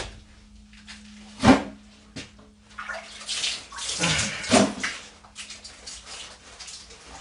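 A single loud knock about one and a half seconds in, then a couple of seconds of breathy, hissing noise with faint low tones in it, which is captioned as a whispered word '물?' ('water?'). A steady low hum runs underneath.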